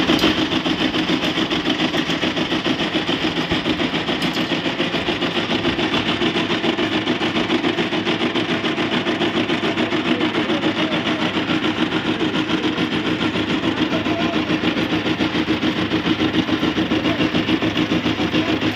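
Pegard horizontal boring and milling machine running, its face-milling cutter cutting a steel block. The sound is a steady mechanical drone with a fast, even pulsing.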